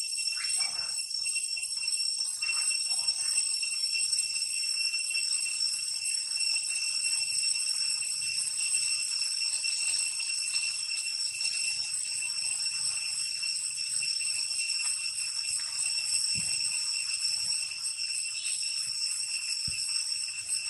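Steady high-pitched insect drone, one unbroken ringing tone with higher overtones. A few short falling calls come in the first three seconds, and two soft knocks near the end.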